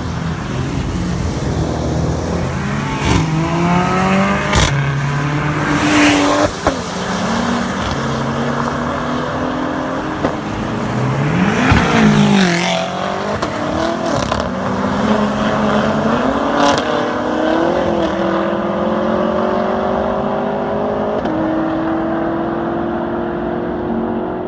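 Several sports cars driving past on a racetrack, engines revving and dropping in pitch as each one passes, with a few sharp cracks from the exhausts.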